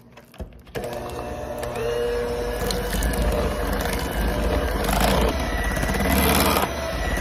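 Electric hand mixer switching on about a second in and running steadily, its beaters churning a thick peanut butter and cream cheese filling in a bowl, the sound growing louder a couple of seconds later.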